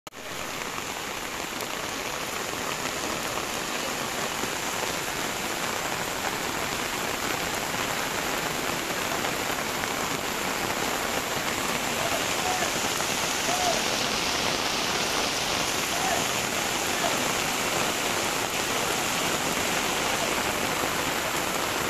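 Heavy rain pouring down steadily: a dense, even hiss with no break.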